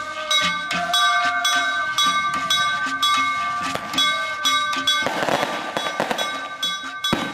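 Procession music: a percussion beat struck about twice a second over steady ringing tones. About five seconds in, a burst of hiss and crackle rises over it, with a sharp bang near the end, from festival fireworks.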